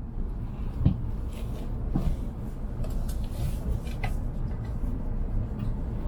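Steady low running rumble inside a Hokuriku Shinkansen carriage, with three light knocks about one, two and four seconds in.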